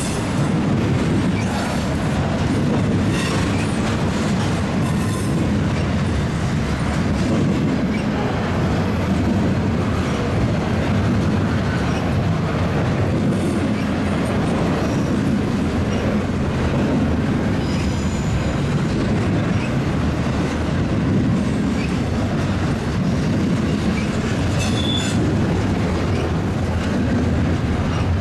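BNSF double-stack intermodal freight train rolling past close by: a steady rumble of wheels on rail with clickety-clack, and a few brief high wheel squeals.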